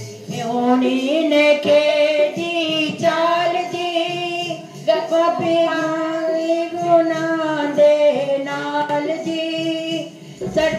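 A group of girls singing a Punjabi Sikh devotional song in long, gliding melodic lines, heard through a television's speaker.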